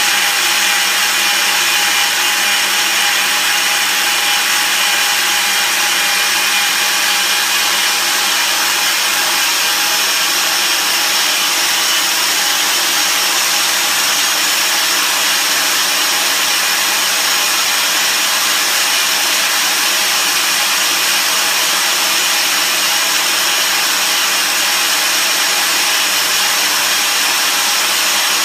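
KRAIS PanelMill-PF tube milling machine running steadily as its head with three carbide inserts cuts Inconel cladding off a 2.5-inch tube. It is a continuous cutting hiss with several held machine tones over it.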